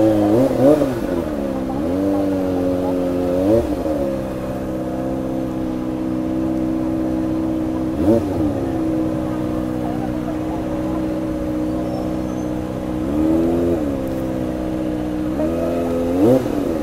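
Kawasaki ZX-25R's 250 cc inline-four engine running at low revs, with about five brief throttle blips in which the pitch jumps up and falls straight back.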